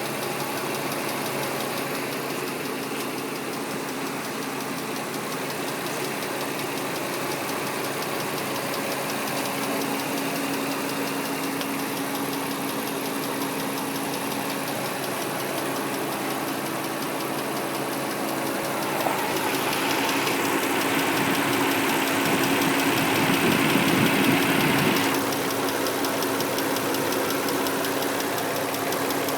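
2003 Nissan Murano's 3.5-litre V6 idling with a fast, even ticking, a noise that has only just started. About two-thirds of the way through the engine sound gets louder for several seconds, then drops back suddenly.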